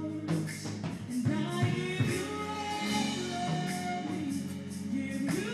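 A women's gospel praise team singing into microphones over band accompaniment, with held, sliding notes and a steady beat of sharp high strikes through the music.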